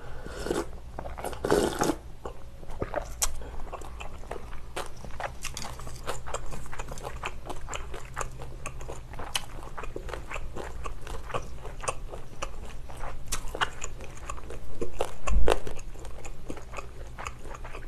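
Close-miked eating of cold noodle soup: a sip of broth straight from the bowl in the first two seconds, then steady chewing of chewy noodles with many small wet clicks. There is a louder slurp of noodles about fifteen seconds in.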